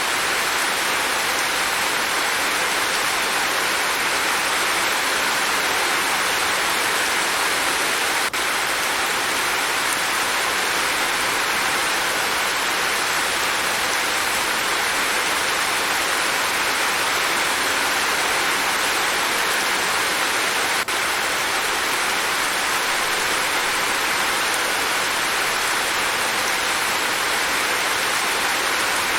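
Steady, dense rainfall hissing without a break, with two momentary dips in level.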